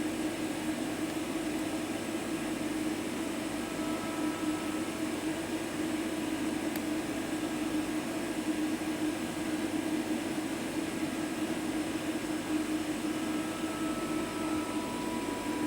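Steady hum and fan noise from a Mazak V-414/32 CNC mill with its control powered up, with a few faint high tones above it.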